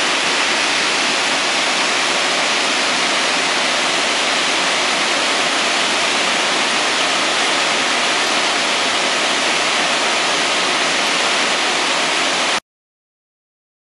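Industrial wide-belt sanding machine running: a steady, loud rushing noise that cuts off suddenly near the end.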